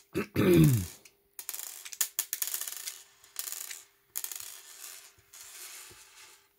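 Loosened M3 machine screws being pulled by hand from a 3D-printed plastic housing and dropped onto a desk: scratchy rubbing with small metallic clicks and ticks. Near the start there is a brief, loud, falling-pitched vocal sound, like a hum.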